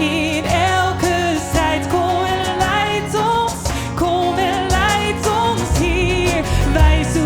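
Live worship music: a singer holds long, wavering notes over a band playing sustained chords, and the bass grows heavier about six seconds in.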